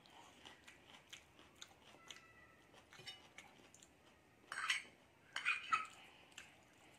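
Chewing noodles, with soft wet mouth clicks. Twice in the second half, a metal fork scrapes and clinks against a glass plate while twirling noodles, louder than the chewing.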